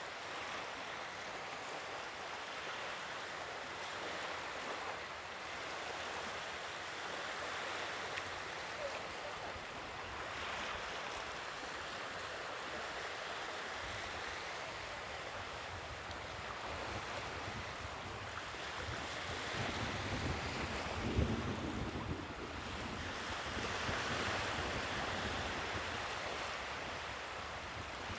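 Ocean waves washing ashore, a steady surf hiss that swells and ebbs every few seconds, with a heavier, deeper surge about two-thirds of the way through.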